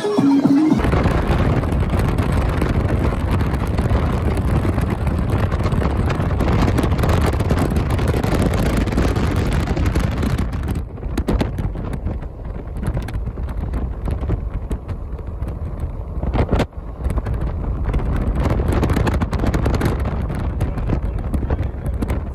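Wind buffeting the microphone over the low rumble of road noise from a car driving along a highway. About eleven seconds in the higher hiss dies down and the low rumble carries on.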